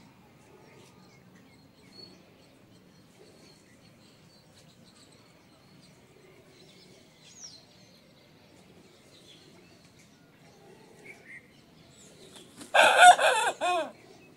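A rooster crows once, loud and about a second long, near the end. Before it there are only a few faint, short chirps of small birds.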